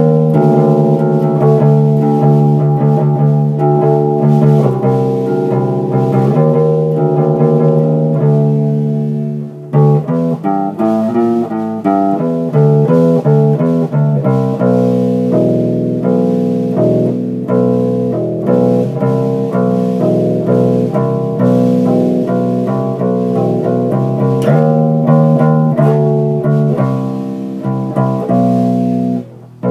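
Electric bass guitar being played: a line of held, plucked notes. It breaks off briefly about ten seconds in, goes into a quicker run of changing notes, and breaks off again just before the end.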